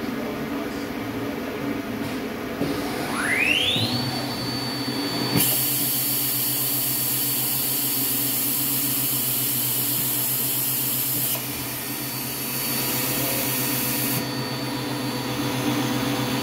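HOMAG Profi BMG211 CNC machining centre's spindle spinning up: a whine rises over about a second to a steady high pitch and holds, over the machine's steady hum. About five seconds in a loud hiss sets in. It breaks off briefly past the middle and stops a couple of seconds before the end.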